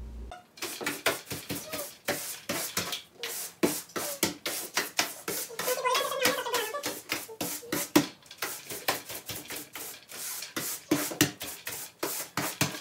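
Angled broom sweeping a wooden plank floor: quick, uneven bristle strokes, about three a second.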